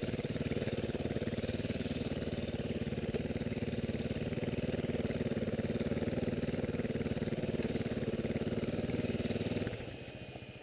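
Dirt bike engine running at a steady, even throttle while riding, then easing off abruptly near the end as the throttle is closed.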